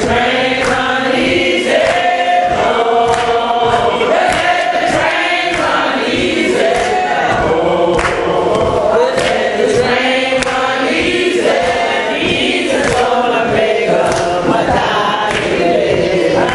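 Church congregation singing a gospel song together, men's and women's voices, with steady hand claps on the beat.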